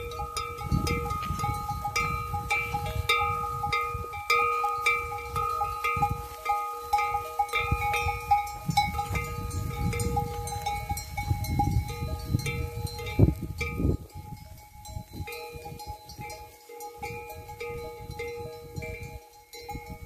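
Many goat bells on a moving herd of goats, clinking and ringing together in a continuous jangle of a few steady pitches. A low rumble runs under it for about the first two-thirds, then eases off.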